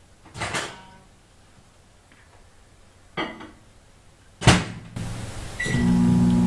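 Microwave oven being worked: three clunks from the door and controls, the last the loudest. Then a short beep and the oven starts running with a loud, steady hum.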